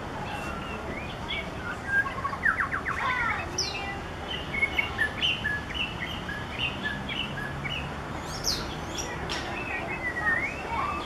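Male white-rumped shama singing: a varied string of clear whistled notes and phrases, with a fast run of rapid notes about two seconds in and several high upward sweeps.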